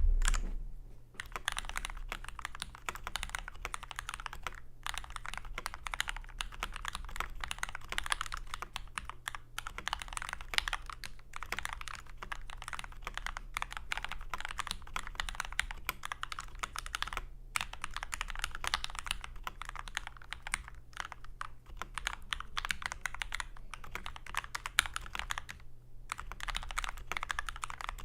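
Continuous fast typing on a Red Square Keyrox TKL Classic mechanical keyboard with linear Gateron Red switches: a dense stream of keystroke clacks, broken by short pauses about 5, 17 and 26 seconds in, over a faint steady low hum.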